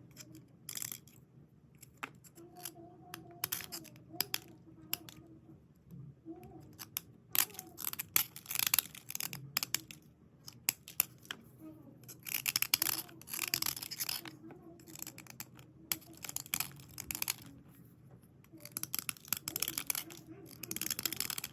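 Dry cleaning of white slate pencils and slate pieces: scratchy rubbing strokes in repeated bursts of a second or two, with light ticks and clicks between them.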